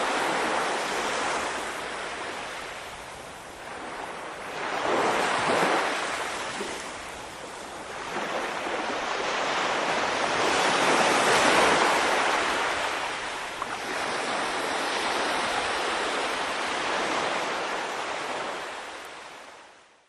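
Small sea waves lapping and washing up a sandy beach, the hiss of each wash swelling and ebbing in slow surges a few seconds apart. The sound fades out near the end.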